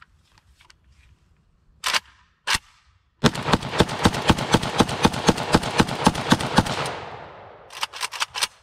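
PSA-74 5.45x39 AK-pattern rifle fired outdoors: two single shots about half a second apart, then a fast string of shots lasting about three and a half seconds that dies away in echo. A few lighter sharp clicks follow near the end.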